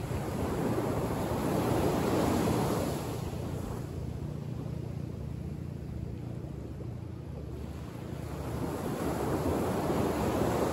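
Small waves breaking and washing up a sandy beach, the surf swelling twice, about eight seconds apart, over a steady low rumble.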